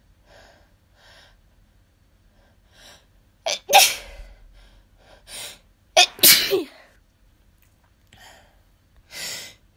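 A person sneezing twice, loudly, about three and a half and six seconds in. Each sneeze is preceded by short breaths, and a softer burst of breath follows near the end.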